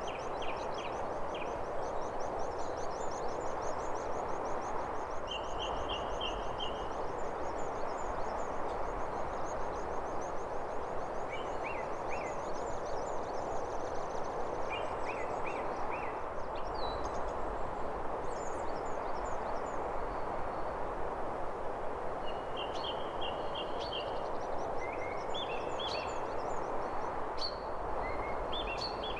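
Outdoor ambience: a steady rushing hiss with small birds chirping and trilling on and off throughout.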